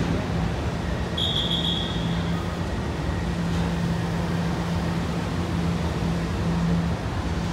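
WMATA Alstom-built 6000-series metro train rolling out along the platform: a steady running rumble with a low hum that comes and goes. A brief high-pitched squeal sounds about a second in.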